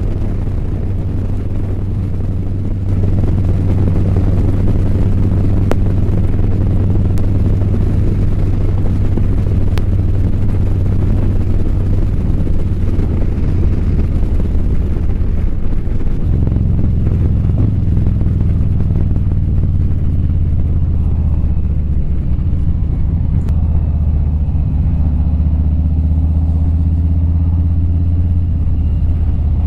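Harley-Davidson Low Rider's V-twin engine running steadily under the rider at cruising speed, with wind rushing past. The engine note changes about halfway through as the road turns from highway to town street.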